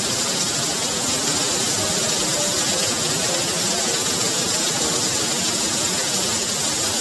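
Heavy rain pouring steadily onto flooded ground, an even hiss of countless drops splashing into standing water.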